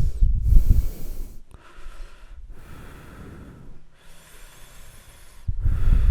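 A strong wind gust buffets the microphone with a low rumble, dies away after about a second, and then three slow breaths are heard close up, each a soft rush of air with a short pause between. Near the end a heavy wind gust hits the microphone again.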